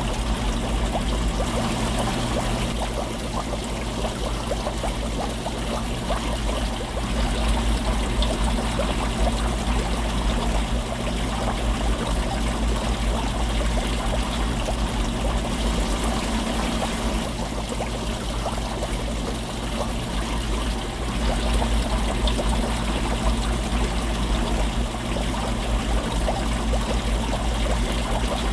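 Underwater sound inside an aquarium tank: a steady rush of moving water with a fine bubbling crackle, over a low, steady hum.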